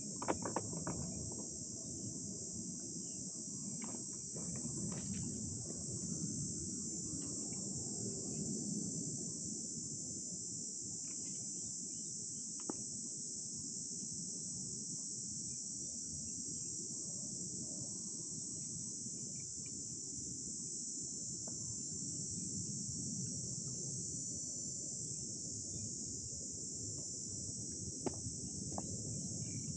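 A steady high-pitched insect chorus, with a low rumble underneath and a few scattered clicks.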